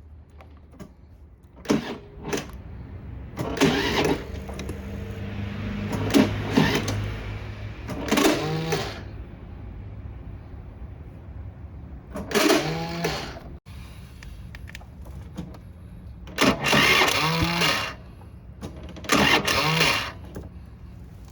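Small motor running in repeated short bursts, each rising and falling in pitch, with quieter mechanical noise in between.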